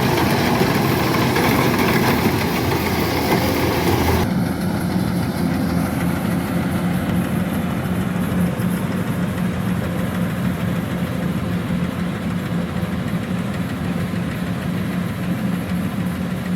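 Kubota DC-105X combine harvester's diesel engine running steadily. For about the first four seconds it has a harsher, hissier sound, then it changes abruptly to a steadier, lower drone.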